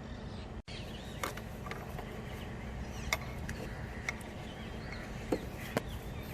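Several sharp, scattered clicks and clinks, as of hand tools on metal, over a steady background noise, with faint bird chirps.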